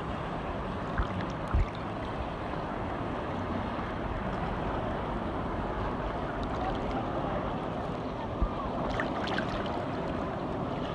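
A watercraft engine running steadily over rushing, splashing water, with a few low thumps of wind buffeting the microphone.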